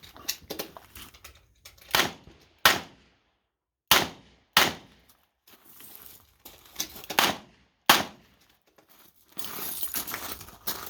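Revolver shots fired in an irregular string: about five loud cracks, some pairs under a second apart and others several seconds apart, with quieter knocks and clatter between them. A rough scraping, rustling noise builds near the end.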